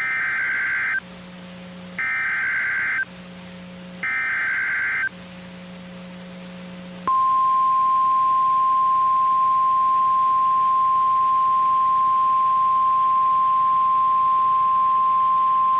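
NOAA Weather Radio Emergency Alert System header: three one-second bursts of SAME data tones about a second apart, with a faint low hum between them. About seven seconds in, the steady 1050 Hz warning alarm tone starts and holds for about nine seconds, signalling that a warning, here a severe thunderstorm warning, is about to be read.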